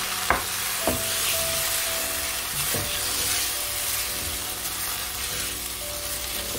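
A thick cornflour-thickened sauce with onions, tomatoes and green chillies sizzling in a hot pan while a silicone spatula stirs it. There are three knocks of the spatula against the pan in the first three seconds.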